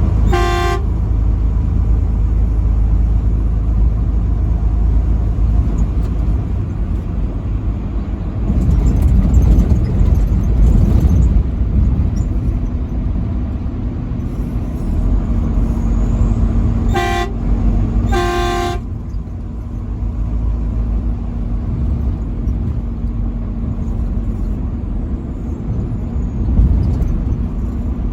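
Truck horn sounding in three short blasts: one just after the start, then two about a second apart around the middle. Under it runs the steady low rumble of engine and road noise on the highway.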